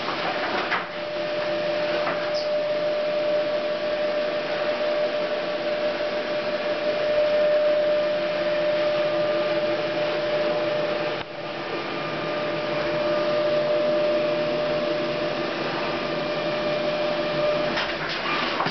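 Memjet SpeedStar3000 roll-fed inkjet label printer running a continuous print job: a steady whirring hiss with a held whine as the labels feed through.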